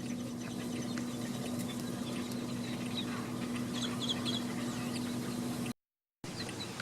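Birds calling over a steady low hum and background noise, with a quick cluster of high chirps about three to four seconds in. The sound cuts out completely for half a second near the end.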